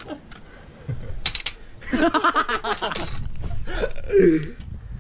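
A man laughing in quick bursts, with a few sharp clicks shortly before and a short falling vocal sound near the end.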